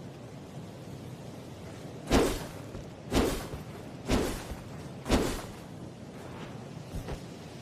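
Sword swung through the air four times, about once a second, each swing a short whoosh that rises quickly and fades.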